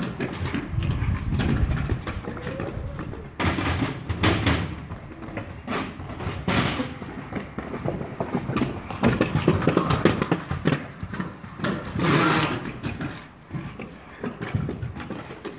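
Kick scooter wheels rolling and rumbling on concrete, uneven in level, with a few sharp knocks about 3.5, 6.5 and 12 seconds in.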